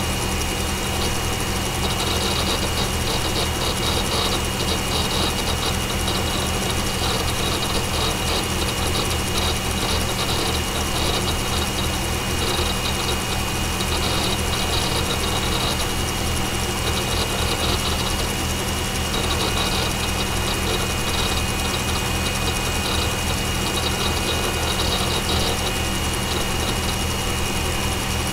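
Desktop PC running: its CPU, case and power-supply fans hum steadily, overlaid by the rapid, irregular clicking and crunching of the IDE hard drive seeking as it boots the operating system.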